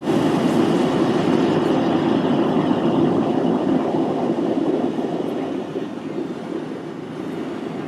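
Steady airliner cabin noise in flight, an even roar that drops a little after about five seconds.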